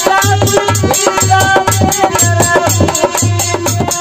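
Rajasthani folk chetavani bhajan: a man singing to harmonium, with a dholak beating about two to three low strokes a second and a fast, high ticking percussion on top.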